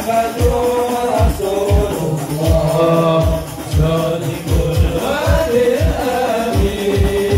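Sholawat, an Islamic devotional song, sung by a lead voice over frame-drum and tambourine percussion with a steady deep drum beat.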